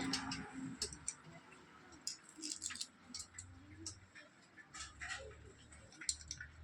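Scattered light clicks and clinks of tools and small metal parts being handled during a vehicle repair, coming irregularly, some in quick clusters.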